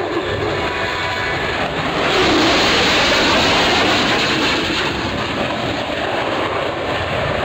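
F-22 Raptor's twin jet engines heard from the ground as the jet passes. The noise swells about two seconds in and eases off after about four and a half seconds.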